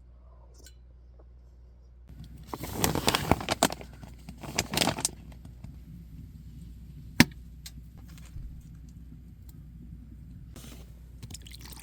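Handling noises: two bursts of clinking and rustling, a single sharp click, then another short burst near the end.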